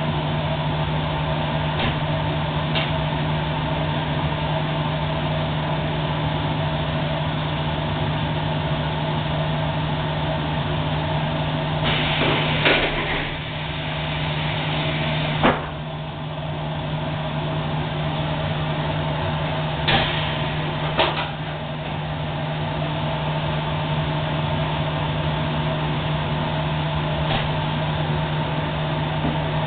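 High-frequency plastics welding machine running with a steady low hum, broken by a short hiss about twelve seconds in and a few sharp clicks.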